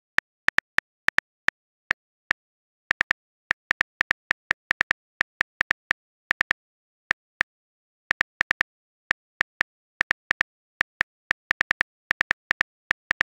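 Smartphone keyboard typing clicks: quick, irregular taps in short runs with brief pauses between.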